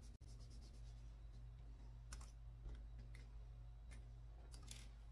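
Faint scattered clicks and light handling noises as an insulin pen is picked up and readied for an injection, over a steady low hum. There is a quick run of clicks in the first second, then single clicks every second or so.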